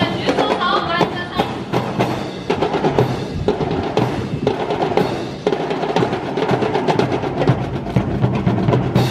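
Drum-led music with rapid drumming and a drum roll, dense with sharp percussive strikes.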